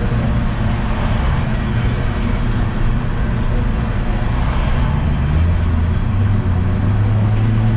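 CSX unit coal train: diesel locomotive engine running over steady rolling noise, its low engine note shifting about five seconds in.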